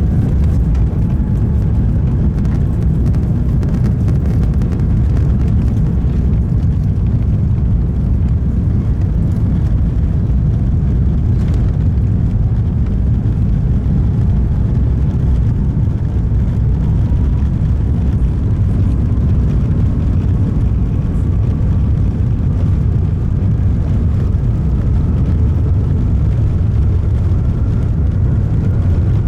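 Cabin noise of an Airbus A350-1000 at takeoff, its Rolls-Royce Trent XWB-97 engines at high power: a steady, loud low rumble of engines and airflow. A faint tone rises slowly in pitch through the second half.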